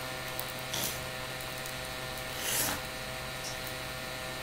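Steady low electrical hum of room tone, with two brief soft rustles, about a second in and again past the middle.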